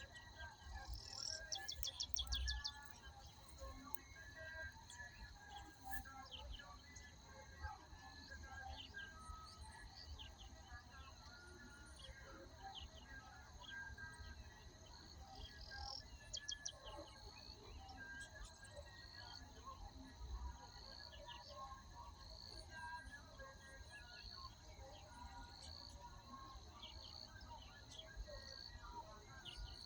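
Wild birds chirping and calling, with rapid trills about two seconds in and again about halfway. In the second half a short call repeats a little more than once a second. Under it runs a steady high insect drone.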